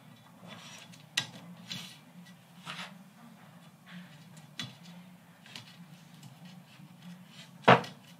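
Plastic rail chairs being threaded onto and slid along a metal flat-bottom rail on a wooden bench: light scrapes and clicks as the chairs move and are set in place, with one sharper knock near the end.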